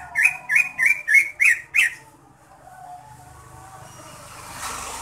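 A caged cucak ijo (green leafbird, Chloropsis) gives a loud run of repeated sharp call notes, about three a second, that stops about two seconds in. A passing vehicle's hiss then swells near the end.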